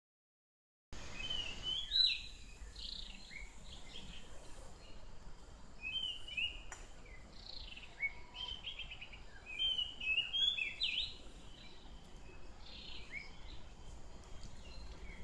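A bird singing a short phrase of quick, rising whistled notes, repeated about every four seconds, over a low steady outdoor rumble. A single click sounds about seven seconds in.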